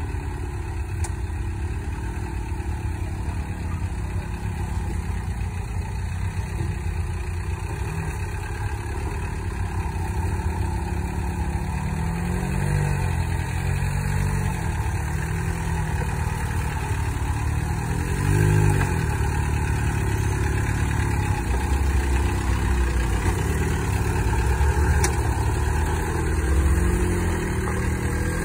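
Volkswagen TDI turbo-diesel engine in a flat-fender Willys Jeep, running at low revs as it crawls over rocks. It revs up and back down briefly a few times around the middle and grows louder as it comes close.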